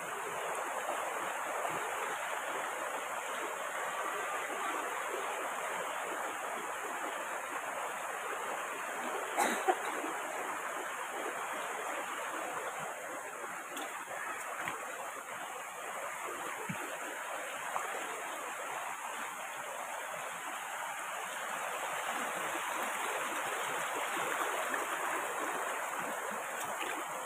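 Shallow rocky mountain stream rushing steadily over stones, with one brief knock about a third of the way in.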